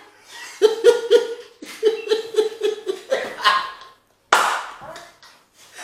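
A woman laughing in a rapid run of short pitched bursts, followed about four seconds in by a sudden loud breathy burst.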